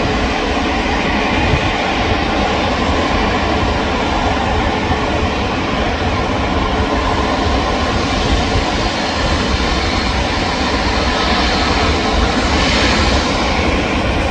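Jet airliner engines running loudly and steadily, a constant noise with a faint steady hum in it, growing a little hissier near the end.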